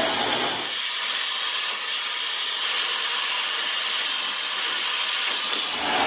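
Dyson Supersonic hair dryer blowing steadily on hair, a smooth even hiss of rushing air.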